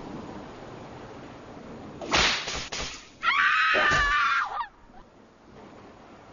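Steady wash of surf, then about two seconds in a sudden loud swishing crash, followed by a shrill, many-toned screech lasting over a second that cuts off sharply.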